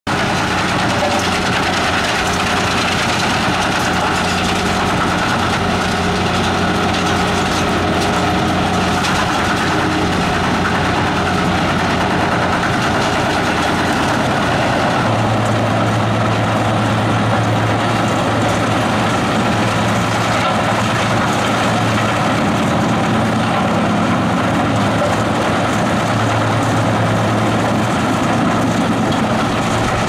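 Lippel RAPTOR 900 wood chipper with a 318 HP diesel engine, running under load as it chips recycled pallet wood, giving a loud steady heavy engine drone over a grinding hiss. About halfway through the low hum gets stronger and the hiss less bright.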